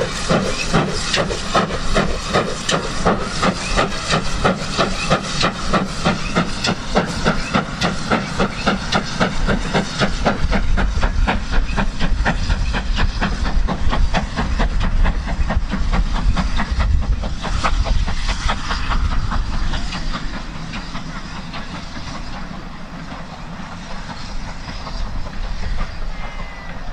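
Great Western small prairie tank engine working hard under load, its exhaust a steady beat of chuffs about four a second. The low rumble of coaches passing comes in the middle, and the beats fade near the end as the train draws away.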